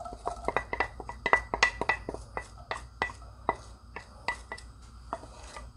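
Wooden spatula tapping and scraping diced onion out of a ceramic bowl into a cast-iron skillet: a quick, irregular run of light clicks, several a second, many with a short ring.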